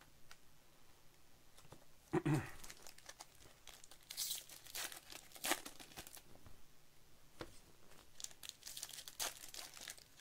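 Topps baseball card pack wrappers crinkling and tearing as packs are opened by hand and the cards handled, in scattered short crackles with a sharp loud one about halfway through. A brief louder low sound comes about two seconds in.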